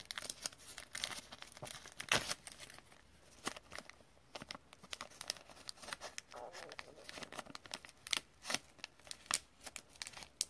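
Clear soft plastic card sleeve crinkling as a trading card in it is handled: a string of irregular sharp crinkles and rustles, the loudest about two seconds in.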